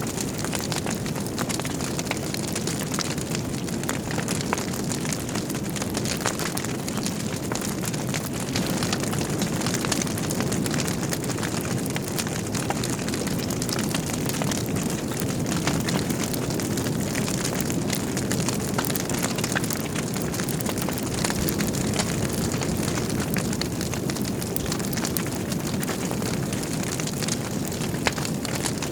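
Wood fire burning in a fireplace: a steady low rumble of flames with frequent small crackles and pops from the logs.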